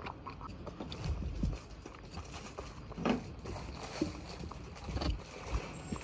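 A cat munching chunks of wet cat food from a glass bowl: irregular wet chewing clicks and smacks, with a few heavier low bites about one, three and five seconds in.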